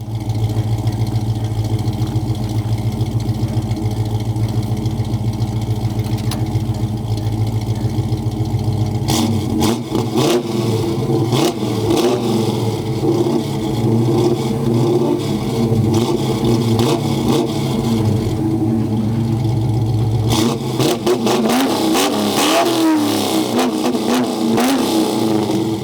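Ford XT Falcon GT's 302 Windsor V8 idling with a strong low beat for about nine seconds, then revved again and again, its pitch rising and falling.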